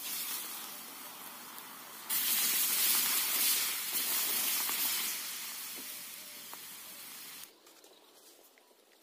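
Water poured from a bottle into a hot iron kadhai, hissing and sizzling as it hits the hot metal and splashes. It gets sharply louder about two seconds in, then fades and cuts off abruptly near the end.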